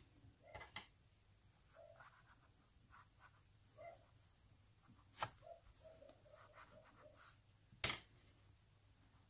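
Quiet handling of a crocheted doll: soft rubbing and scratching of yarn and stuffing as a plastic glue stick is worked into the head, with a few sharp clicks, the loudest near the end.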